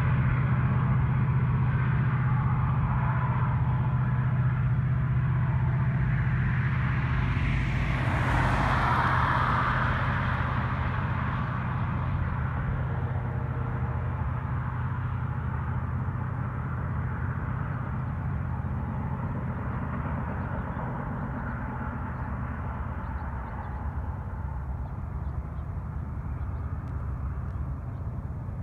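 Freight train's diesel locomotives working hard, a steady low engine drone that slowly fades as the train pulls away. A road vehicle passes close about eight seconds in.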